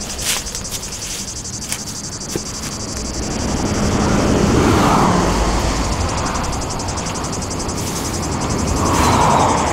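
Traffic passing on a nearby road, its rush swelling about halfway through and again near the end, over a steady pulsing buzz of insects. A few small knocks come in the first couple of seconds.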